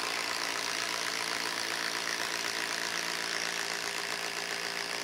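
DeWalt 12-volt Xtreme impact driver driving an 8-inch TimberLOK structural screw into end-grain log wood, its impact mechanism hammering steadily and rapidly without a pause.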